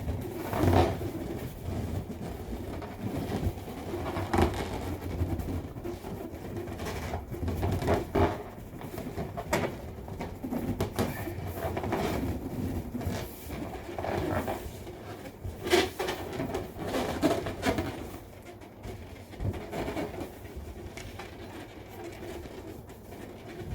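Latex balloon handled close to the microphone: irregular rubbery rubbing and puffing with a few sharper taps or squeaks.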